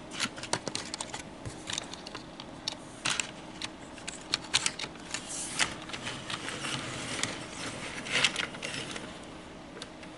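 Irregular small plastic clicks, taps and rattles of an HO scale model train car being handled and set onto the track, with a few brief rustles.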